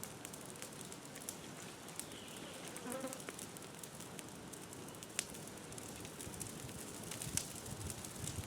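Brush and oak-top burn pile burning, with a steady hiss and frequent sharp crackles and pops. A brief buzz passes about three seconds in.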